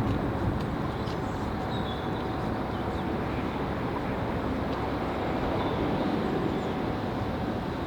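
A train running past with a steady rumble. Faint bird chirps sound over it a few times.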